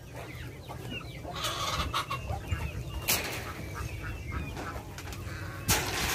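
Chickens clucking in their pens, short scattered calls throughout, with a few brief louder noises, the strongest about three seconds in and another near the end.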